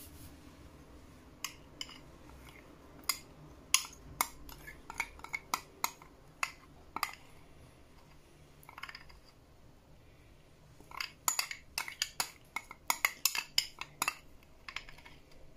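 Light clinks and taps of kitchenware as a glass bowl of condensed milk is tipped and worked over a plastic blender beaker. There is a scatter of sharp clicks, a pause, then a denser run of clinks near the end.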